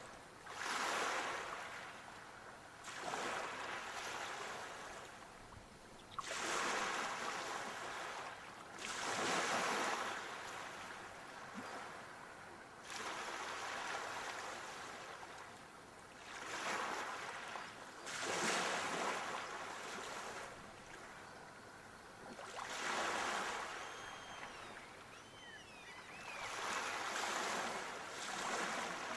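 Sea waves breaking and washing on a shore, each surge of surf swelling and fading every three to four seconds. A few faint high chirps come in about two-thirds of the way through.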